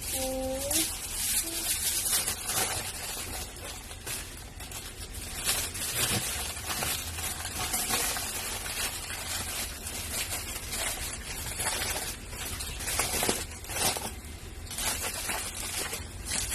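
Aluminium foil being torn and crinkled as it is handled and wrapped over an orange: a busy crackle of many small, sharp rustles.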